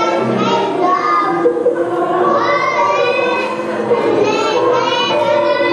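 A group of young children singing a song together, with held notes.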